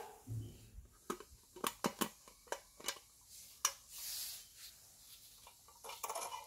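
Hands handling a die-cast model truck: a dull thump at the start, then a string of small sharp clicks and taps, a brief rustle, and a quick cluster of clicks near the end as the container's rear door is opened.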